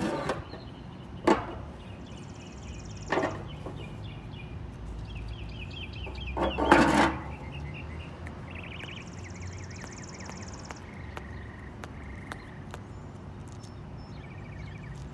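Close handling noises from a small geocache container being fumbled with and opened, a few sharp knocks and rustles with the loudest a longer clatter about seven seconds in. Birds chirp and trill throughout over a low steady hum.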